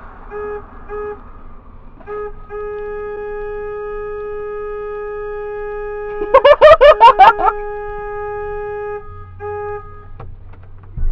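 A car horn sounding one steady tone, being toyed with: three quick toots, a short one, then a long blast held for about six seconds and one more short toot. Partway through the long blast, a louder burst of about eight rapid warbling pulses cuts in for a little over a second.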